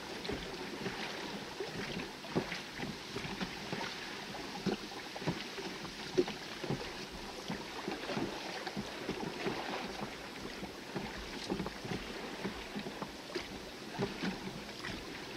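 Rowboat being rowed: oars dipping and water splashing and lapping against the hull, with many small splashes and knocks over a steady wash of water.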